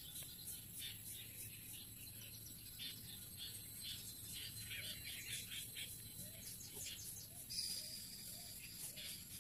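Faint birdsong of short, repeated high chirps over a thin, steady high insect drone.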